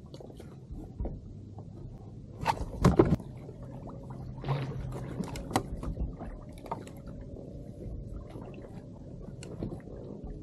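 Knocks and thumps on a plastic kayak hull and deck gear as a fish is brought aboard and handled, loudest in a quick cluster about two and a half seconds in, then scattered lighter knocks.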